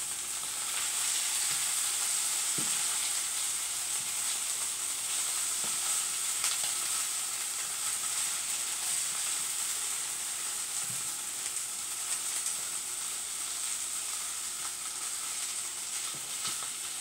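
Corned beef hash sizzling as it fries in a skillet, a steady hiss, while it is stirred with a wooden spoon that scrapes the pan and knocks against it now and then.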